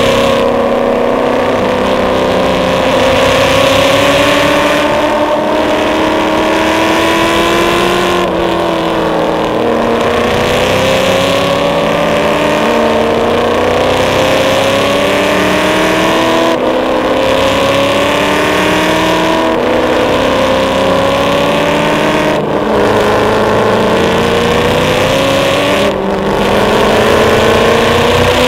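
Ford 351 Windsor small-block V8 in a BMW E34 race car, heard from inside the cabin while lapping a circuit. The engine note repeatedly climbs in pitch as the car accelerates and drops away when the driver lifts or brakes.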